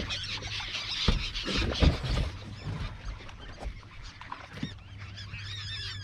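A flock of gulls calling over feeding stripers, many short overlapping cries, with a few low thumps about one and two seconds in.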